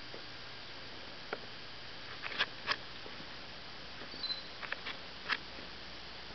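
Brief, faint squeaks and clicks from young Catahoula mix puppies, about two and a half weeks old, squirming on a blanket. About half a dozen are scattered over a steady hiss, the loudest a little over two seconds in and again near five seconds.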